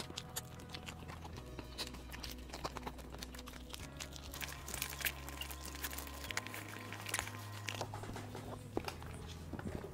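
Crisp fried chicken breading crackling and crunching as it is pulled apart by hand and chewed, many small sharp crackles throughout. Soft background music with low held notes runs underneath.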